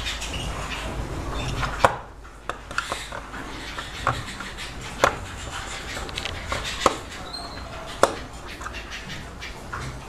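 Sharp clicks and knocks at irregular intervals, about seven of them, from hands working wires into the terminals of a bird-brooder thermostat. A low background rumble drops away about two seconds in.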